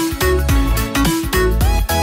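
Electronic background music with a heavy, pulsing bass line and synth notes that slide in pitch.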